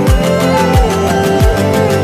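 Background music with sustained tones and a steady beat, led by deep bass hits that fall in pitch, three of them about two-thirds of a second apart.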